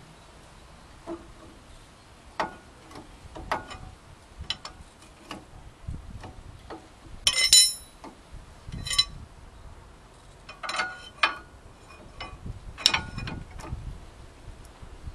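Socket ratchet clicking in short runs and steel tools clinking against the brake caliper bracket as its bolts are run in. The loudest is a ringing metal clink about seven seconds in.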